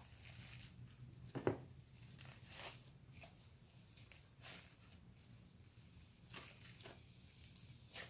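Faint sticky squelches and tearing sounds of slime being kneaded and stretched by hand, with white glue being worked into it. A few short pops come at uneven intervals; the loudest is about a second and a half in.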